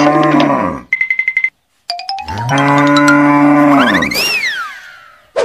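Cow mooing twice, each moo long and drawn out; since the cows are plastic toys, these are dubbed sound effects. A short, fast-pulsing high chime comes between the moos about a second in, and a whistle rises then falls near the end of the second moo.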